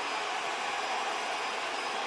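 ILIFE V10 robot vacuum running: a steady rushing of its suction fan with a faint high whine.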